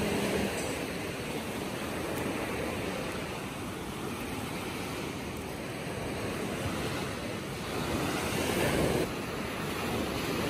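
Sea surf washing and breaking onto a sandy beach, a steady rushing with one wave swelling louder near the end. Some wind noise on the microphone.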